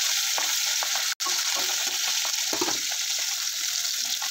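Pieces of dhela fish coated in salt and turmeric sizzling as they fry in hot oil in a black kadai: a steady hiss with scattered small crackles. The sound cuts out for an instant about a second in.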